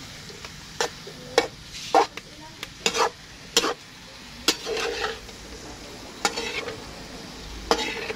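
A slotted metal spatula scraping and clanking against a metal wok in irregular strokes as green beans and pork are stir-fried, with a sizzle underneath.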